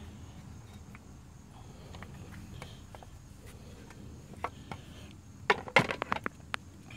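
A Ridgid Octane 18V cordless circular saw being handled while switched off: a few light clicks, then a quick cluster of knocks and clatter about five and a half seconds in as the saw is set back down on its stand.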